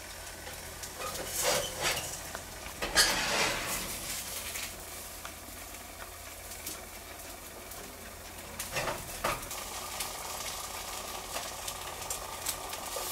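Nespresso Aeroccino milk frother running, its whisk spinning in the heating milk with a steady sizzling hiss. A few louder rustling bursts come in the first few seconds and again near the middle.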